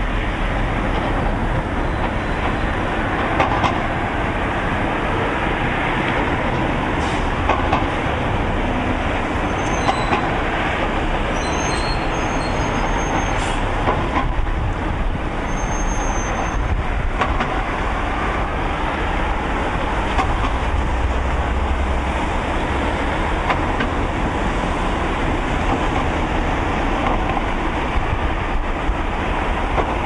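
Steady rushing outdoor noise with road traffic passing, plus a few faint short high squeaks between about ten and seventeen seconds in.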